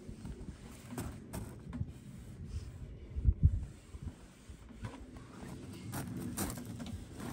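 Light handling noises from cloths being rubbed over the wooden staves of a hot tub, with scattered small clicks and a brief low thump about three seconds in.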